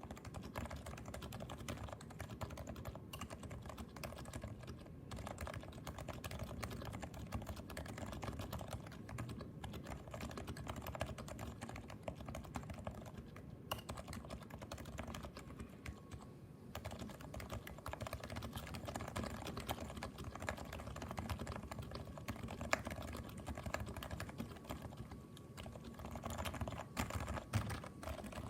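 Steady typing on a Leopold FC660C keyboard with Topre electrostatic capacitive switches, modded for quiet: slider rails and spacebar stabilizer lubed with Krytox 205g0, and the case lined with heavy foam. The keystrokes come in a fast, continuous run with a couple of brief pauses midway.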